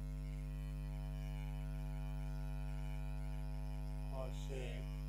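Steady low electrical mains hum that runs unchanged, with a brief sound of a man's voice about four seconds in.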